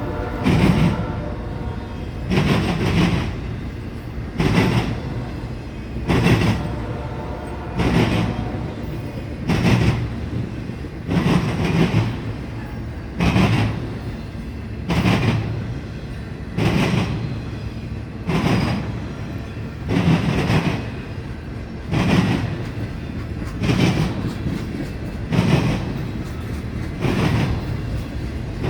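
Intermodal freight cars rolling past on steel rails, the wheels clacking over a rail joint in a burst about every 1.7 seconds over a steady rumble.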